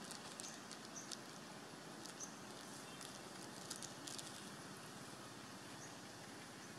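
Quiet outdoor ambience: a steady low hiss with scattered faint ticks and clicks, mostly in the first few seconds, and a few tiny high chirps.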